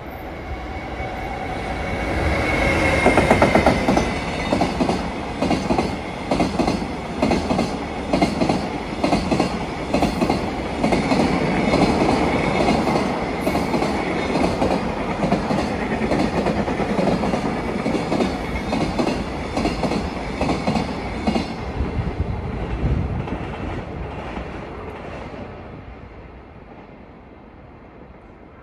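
JR Freight EF210 electric locomotive and a long train of container wagons passing at speed. The sound builds to its loudest about three seconds in, with a brief high whine, then gives way to a long, steady clickety-clack of wagon wheels over rail joints. It dies away from about 22 seconds as the last wagons pass.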